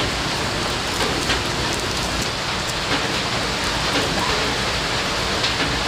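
Heavy rain falling steadily, an even dense hiss dotted with scattered sharper drops.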